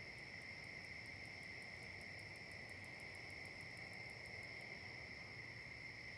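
Insects trilling steadily and faintly, a continuous high buzzing chorus. Over it a fainter, very high ticking repeats about five times a second and stops a little after four and a half seconds.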